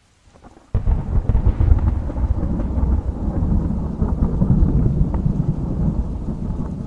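Thunder breaks suddenly, under a second in, and rolls on as a long, deep, continuous rumble over soft rain.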